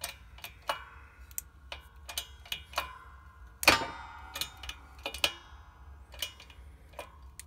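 Hand-operated press slowly forcing a steel pusher tool onto a new wrist-pin bushing in a Cummins 4BT connecting rod: irregular sharp metallic ticks and clicks, each with a short ring, as the bushing creaks into the tapered bore. About three and a half seconds in comes one much louder metallic crack with a longer ring; the owner says just afterwards that the tool slipped a little.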